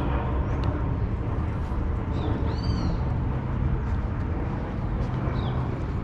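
Urban outdoor ambience: a steady low rumble of city traffic with a few short, high, arching bird chirps, the clearest about two and a half seconds in and more near the end.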